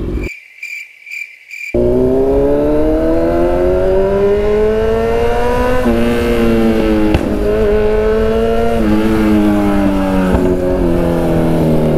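Kawasaki Z1000's inline-four engine pulling hard under acceleration from about two seconds in. Its pitch rises steadily and drops back at a few upshifts.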